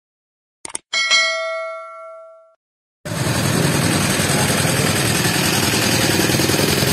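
A click sound effect, then a bright notification-bell ding that rings out and fades over about a second and a half. About three seconds in, steady street noise with vehicle engines cuts in suddenly.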